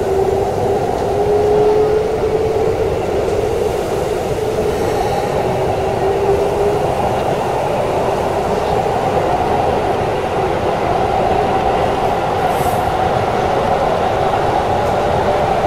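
Keikyu electric multiple unit accelerating away from a station, heard from the driver's cab: the traction motors' whine climbs slowly in pitch over the steady running noise of the wheels on the track.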